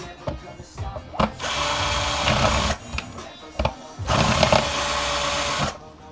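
Power drill-driver running in two bursts of about a second and a half each, trying to back out a stubborn screw from a plastic charger case, with small clicks and knocks of handling between the bursts.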